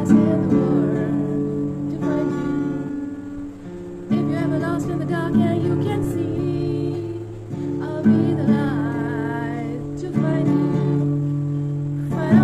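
Acoustic guitar strummed in slow chords, a new chord struck about every two seconds, with a woman singing along.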